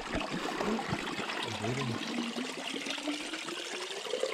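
Running water, a steady rushing like a stream, with no clear breaks.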